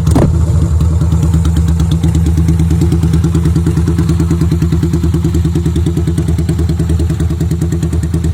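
Yamaha Virago 250 (XV250) air-cooled V-twin, fitted with an aftermarket Icarus Storm exhaust, catching just at the start with its revs dropping, then idling steadily with an even throbbing pulse and a deep, strong note.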